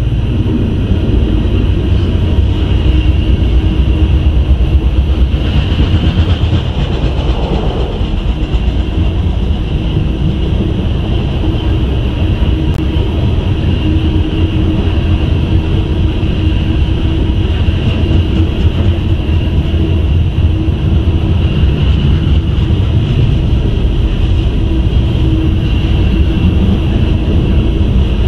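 Loaded coal hopper cars rolling past: a steady, loud rumble of steel wheels on rail with a steady high-pitched ring over it.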